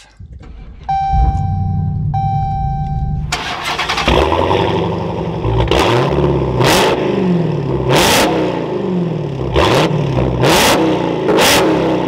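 Supercharged 6.2-litre HEMI V8 of a Dodge Challenger SRT Hellcat Redeye cold-starting with a push button: it catches about a second in and settles to idle under two long chime tones. From about three seconds the exhaust is heard directly at the rear, revved in about six quick blips, each rising and falling back to idle.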